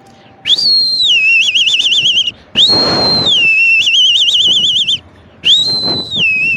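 A man whistling an imitation of a kite's call, three times: each call is a high held note that drops in pitch and breaks into a fast quavering trill.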